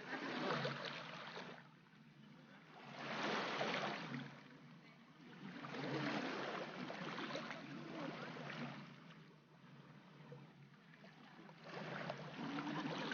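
Small sea waves washing in and drawing back on the shore, each wash swelling and fading about every three seconds.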